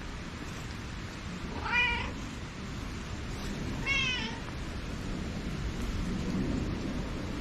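A cat meowing twice, two short meows about two seconds apart, over a steady background hiss.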